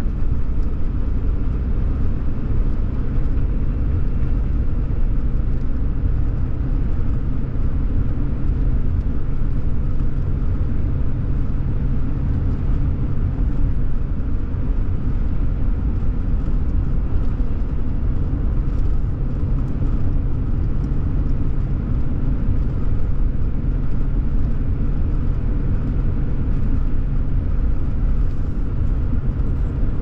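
Steady low rumble of a Ram 3500 pickup truck driving at road speed, heard from inside the cab: tyre and engine noise.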